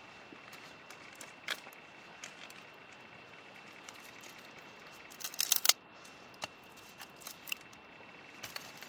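Wood fire crackling, with scattered sharp pops and a quick burst of loud snaps about five and a half seconds in. A faint steady high tone sits underneath.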